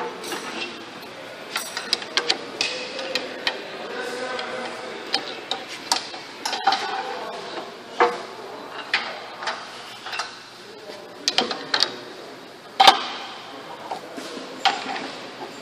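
Irregular metallic clicks and knocks of hand tools on a Caterpillar C7 ACERT diesel engine as it is barred over by hand to the next cylinder's top dead center, with one sharper knock late on. Faint voices in the background.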